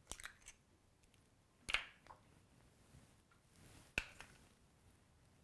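Eggs being cracked one at a time on a bowl: three faint, sharp taps about two seconds apart.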